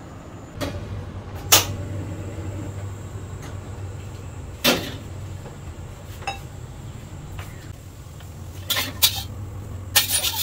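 Cookware being handled at a gas stove: several separate knocks and clanks, the loudest about one and a half seconds in. A steady low hum runs under them, and a short rush of noise comes near the end.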